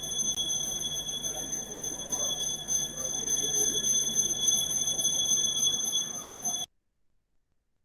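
Background noise from an open microphone on a video call: a steady high-pitched electronic whine with a faint low hum over hiss, which cuts off suddenly to dead silence near the end as the line goes quiet.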